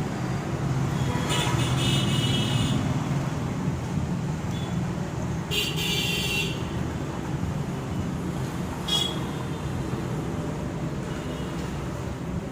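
Steady road-traffic rumble with vehicle horns tooting three times, each toot brief and high-pitched.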